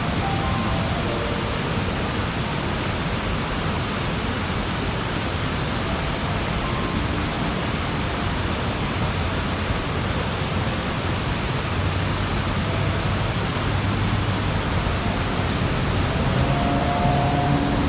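Mamon Falls waterfall: water falling and rushing in a steady, unbroken roar.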